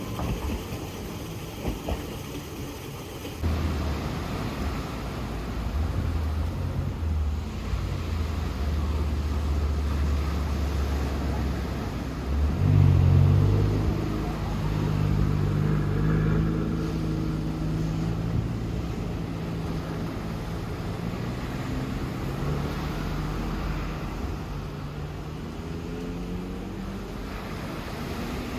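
A vehicle's motor running. A steady low hum gives way about twelve seconds in to a tone that climbs slowly in pitch as it speeds up.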